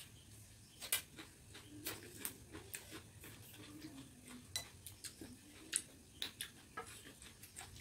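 Eating by hand from metal plates: scattered faint, sharp clicks and taps, about a dozen, of fingers and food against the plates, with chewing.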